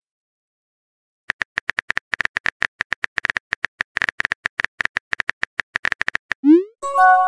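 Phone-keyboard typing clicks from a texting-story app, a rapid string of taps as a message is typed. Near the end comes a quick rising swoop and a short chime chord as the message is sent.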